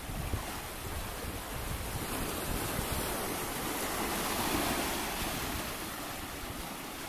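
Sea surf breaking and washing in at the water's edge. The wash swells to its loudest a little past the middle and then eases off.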